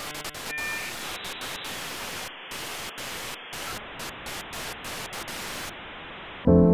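Glitchy static hiss from a logo intro sound effect, stuttering and dropping out in short gaps, with a few clicks at the start. Near the end a loud sustained musical chord cuts in.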